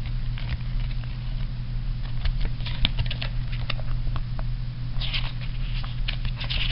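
Folded paper playmat and card packaging being handled: scattered light ticks and crinkles of paper and card, with a longer rustle about five seconds in. A steady low electrical hum runs underneath.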